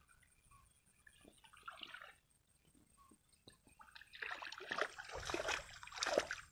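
Hands splashing and sloshing through shallow muddy water, groping for fish. Brief light splashes come about a second or two in, then a louder, longer stretch of splashing in the last couple of seconds.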